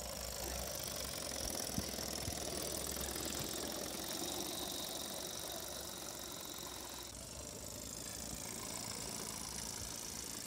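Large-scale garden model train running along outdoor track: a steady mechanical running noise from its motor and wheels, with a couple of small clicks about two seconds in.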